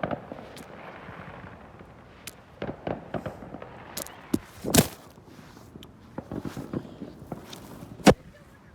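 Fireworks going off: a string of separate bangs with some crackle between them, the two loudest bangs about halfway through and near the end.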